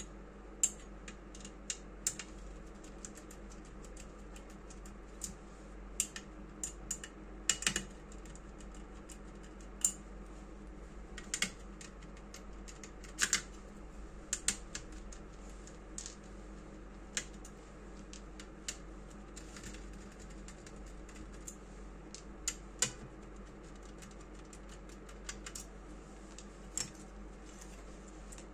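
Scattered sharp clicks and taps of hand tools and the plastic and metal parts of an all-in-one PC being handled as it is taken apart. The clicks come singly or in small clusters, a second or more apart, over a steady low hum.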